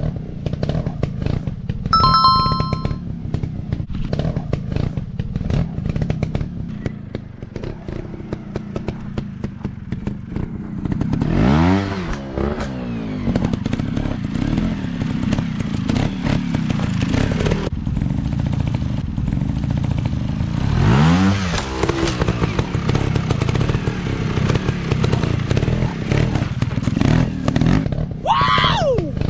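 Dirt bike engines running with a rattly idle, revved up twice with rising pitch about 11 and 21 seconds in and once more sharply near the end. A short high-pitched beep sounds about two seconds in.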